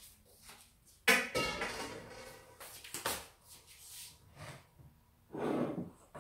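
Kitchen handling noises: a loud metallic clank about a second in that rings on briefly, followed by lighter knocks and clatter of things being moved on the counter.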